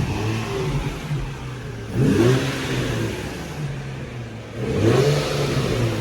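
Nissan 350Z's V6 engine being blipped three times from idle, each rev rising and falling back, about two to three seconds apart. The revs are a check for a rattle that is now gone.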